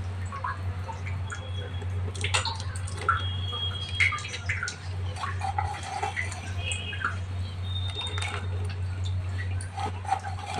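A metal spoon stirring thick milky rice kheer in a pot, with soft wet plops and light taps as chopped almonds are added, over a steady low hum.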